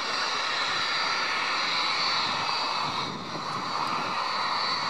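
Cessna 500 Citation's twin Pratt & Whitney JT15D turbofans at low taxi power, a steady rushing hiss with a high thin whine. The sound dips briefly about three seconds in.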